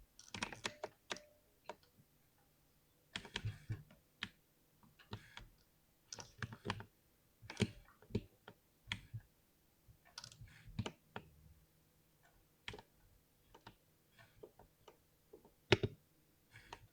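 Mechanical keyboard with lubed switches being typed on: irregular runs of key presses, each a quick cluster of clicks, with short pauses between them.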